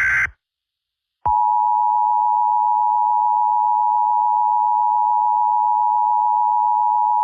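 Emergency Alert System tones: the last SAME header data burst cuts off a fraction of a second in. After about a second of silence, the EAS attention signal (two steady tones near 1 kHz, 853 and 960 Hz together) starts and holds unbroken.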